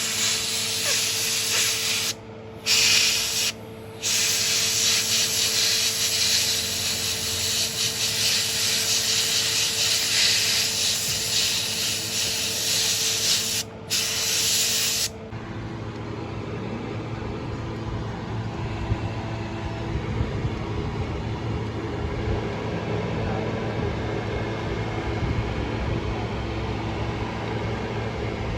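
Loud pressurised spray hissing, cut off briefly three times as if a trigger is let go, then stopping abruptly about halfway through, leaving a quieter steady machine hum.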